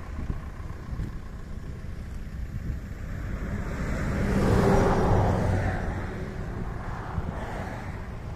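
Road traffic: vehicle engines running in a slow queue of cars and trucks, with wind on the microphone. A louder engine swells and fades about four to five seconds in, as a vehicle passes close by.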